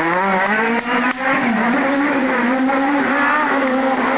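Renault Clio Maxi Kit Car rally car's four-cylinder engine revving hard under load. Its pitch climbs over the first second, then holds high and wavers with the throttle, with two brief dips about a second in.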